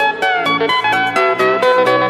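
Background music: a plucked guitar playing a quick run of notes, several a second, with some notes sliding in pitch.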